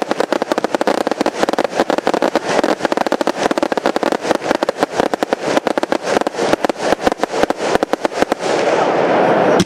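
Firework batteries firing a rapid barrage: dense, sharp cracks and bangs, many per second. About eight and a half seconds in, the cracks give way to a steady hiss.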